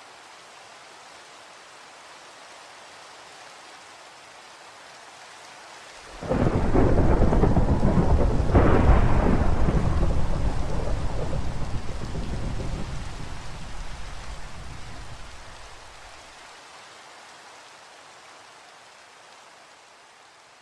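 Steady rain with a sudden loud thunderclap about six seconds in and a second crack soon after, then a low rumble that slowly fades away.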